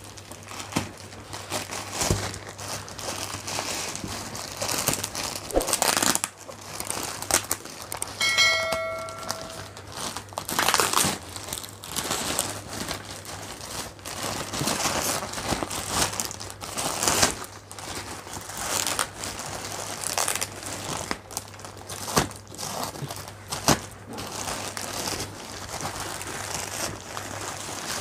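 Thin plastic courier mailer bag crinkling and tearing as it is pulled open by hand, in irregular bursts of rustling and ripping, with a brief squeak about eight seconds in.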